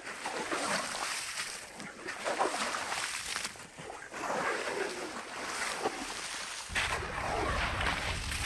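Shovel scraping and scooping wet salt crust in irregular strokes. A low wind rumble sets in near the end.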